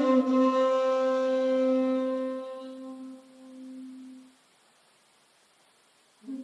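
2.8 jinashi shakuhachi holding a long low note with breath noise, which fades away about four seconds in. A near-silent pause follows, and the next, slightly lower note begins right at the end.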